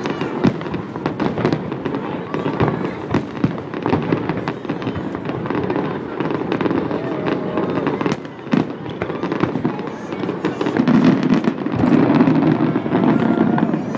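Aerial fireworks shells bursting in quick succession, with many sharp bangs and crackles over a crowd's chatter. The bursts grow louder near the end.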